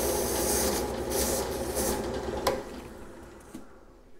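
Craftsman 10-inch drill press running with a sanding drum while an abrasive cleaning stick is pressed against the spinning drum, a loud rubbing hiss over the motor hum as the clogged sandpaper is scrubbed clean. About two and a half seconds in the hiss stops with a click, and the machine runs on more quietly, fading toward the end.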